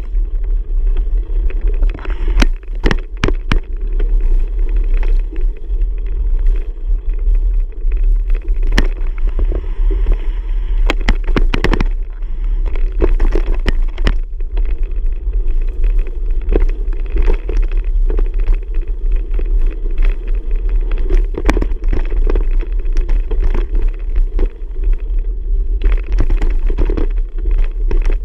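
Ride noise on a camera carried on a moving bicycle: a steady loud rumble with frequent irregular knocks and rattles as it goes over bumps.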